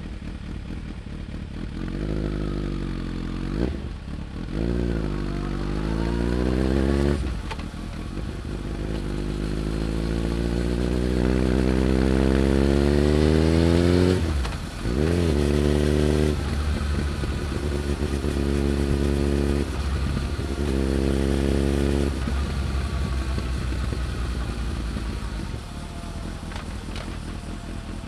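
Suzuki GSX1300R Hayabusa's inline-four through a Tech Surf carbon muffler, accelerating through the gears: the engine note climbs and drops at each upshift, holds steady while cruising, then falls as the throttle eases near the end. Loud drive-chain noise runs under the exhaust.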